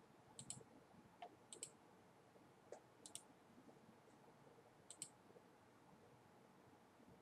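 Computer mouse clicking: four quick pairs of clicks, each a press and release, and a few fainter single clicks over faint room hiss.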